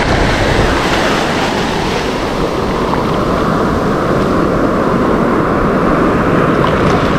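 Shallow sea waves washing up the sand and over the feet at the waterline: a steady, loud rush of surf, with wind rumbling on the microphone.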